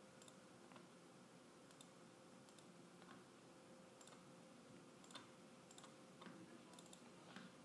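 Near silence with a scattering of faint computer-mouse clicks over a faint steady hum.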